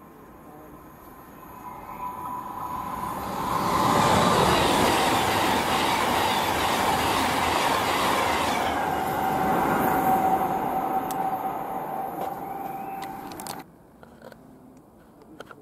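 Train passing at speed: a rush of wheels and air builds, holds loud for several seconds with a thin whine that drops in pitch as it goes by, then cuts off abruptly near the end.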